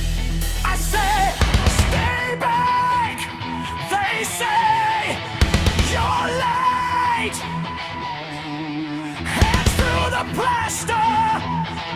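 Loud rock music: drums, guitars and a wavering high lead line, with heavy drum hits about a second in, in the middle and near the end.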